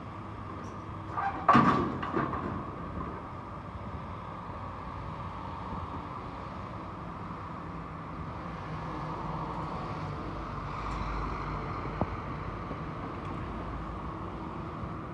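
Demolition excavator with a hydraulic shear working on a steel lattice frame, its engine and hydraulics running steadily. A loud clank comes about a second and a half in, and a single sharp click near twelve seconds.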